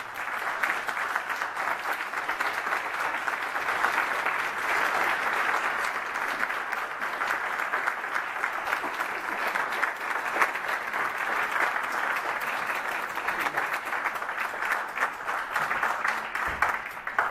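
An audience applauding steadily, a dense clatter of many hands clapping that dies away near the end.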